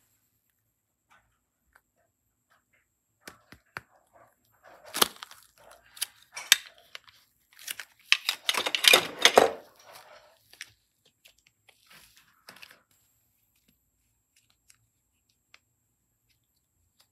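Crackling, crinkling noises: scattered clicks that build into a dense crackly run in the middle, then thin out and stop.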